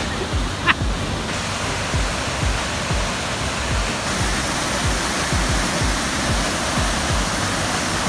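Waterfall rushing: a steady roar of white water pouring over a rock ledge. A brief high squeak sounds once, less than a second in.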